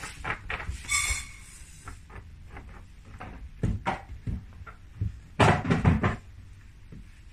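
A Shiba Inu digging, scratching and tugging at the padded mat inside a metal wire crate, with scrapes, knocks and rattles of the crate. A louder cluster of knocks and rattling comes about five and a half seconds in.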